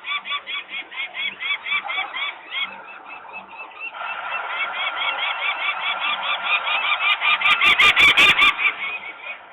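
Adult peregrine falcons alarm calling: a fast, steady series of repeated calls, about four or five a second, louder from about four seconds in. A short run of sharp knocks comes near the end.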